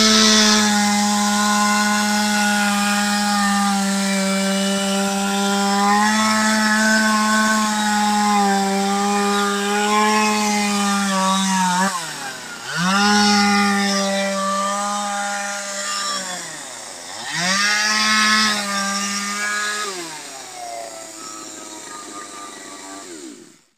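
Two-stroke chainsaw at full throttle cutting into a log, its pitch dropping and climbing back twice as the throttle is let off and opened again. Near the end it drops to a lower, quieter idle.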